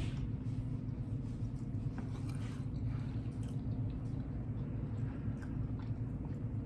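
A man chewing food close to the microphone, with soft, wet mouth clicks, over a steady low hum.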